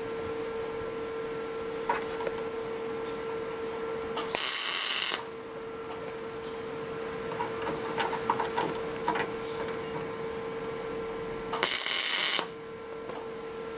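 Flux-core wire welder striking two short arcs, each lasting under a second, loud and crackling over a steady hum. The arcs are kept brief because the thin sheet metal burns through even at the welder's lowest setting.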